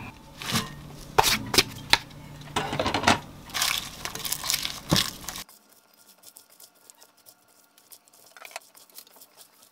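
Food being tipped into a glass mixing bowl and tossed with wooden chopsticks and a gloved hand: sharp clicks and knocks of chopsticks against the glass among the rustle of lettuce leaves and noodles. About halfway through the sounds stop and it goes almost quiet.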